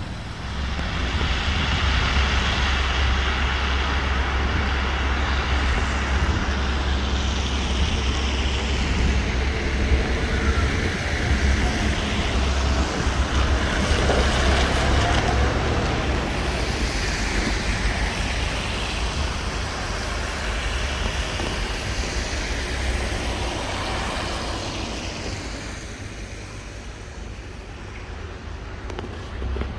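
Road traffic on a town's main street: vehicles passing one after another over a steady low rumble, easing off near the end.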